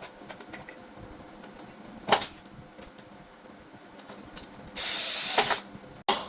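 Workshop handling noises while aluminum doors are being made: one sharp knock about two seconds in, then a short hissing scrape near the end.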